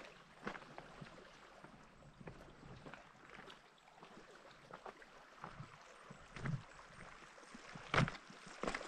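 Footsteps crunching on loose stones and rock, slow and irregular, with one louder step near the end, over a faint steady background hiss.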